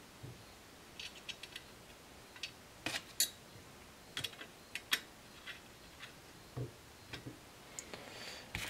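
Allen key and small screw being worked into an AR-15 free-float handguard by hand: faint, irregular small metallic clicks and ticks, spaced out by pauses.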